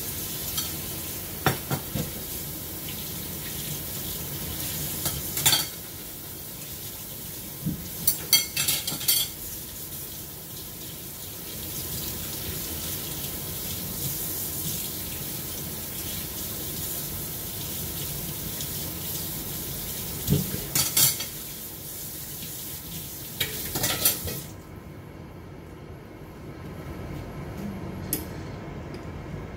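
Water running from a kitchen tap, with dishes and utensils clinking and clattering now and then; the running water stops abruptly a few seconds before the end.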